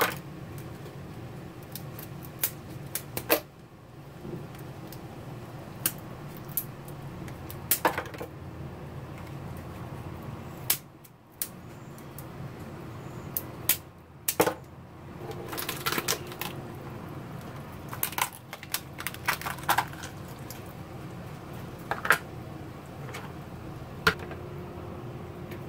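Kitchen shears snipping through Dungeness crab legs and shell: sharp, irregular clicks and cracks, a few seconds apart, some in quick clusters.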